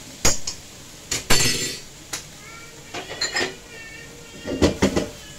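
Kitchen clatter while light soy sauce is measured into a hot wok: a string of sharp clinks and knocks from the bottle's flip-top cap, a spoon and cookware, with a short hiss about a second in and brief ringing clinks in the middle.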